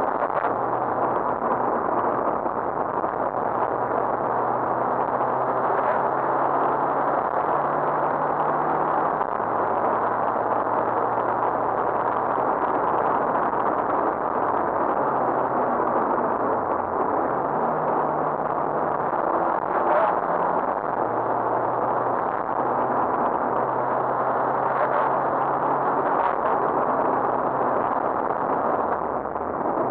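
Rally car engine running hard, heard from inside the cabin over loud road and tyre noise. The engine note jumps up and down in steps and sags twice, around the middle and near the end, with a few sharp clicks about two-thirds of the way through.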